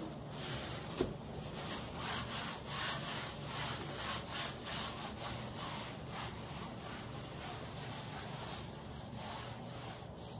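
Plastic-gloved hand rubbing paint across a stretched canvas in quick repeated strokes, with a single knock about a second in.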